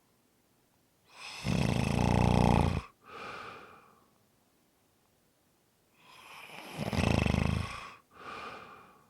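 A person snoring: two long, rattling snores about five seconds apart, each followed by a shorter, softer breath, with quiet between the cycles.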